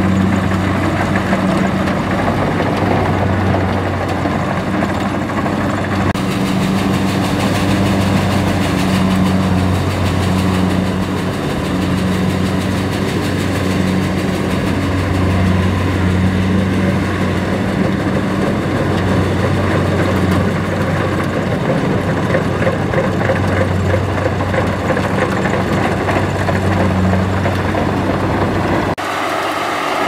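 Kubota tracked rice combine harvester's diesel engine running steadily under load. Its low hum swells and fades every second or two. The hum cuts out abruptly near the end, leaving a higher mechanical sound.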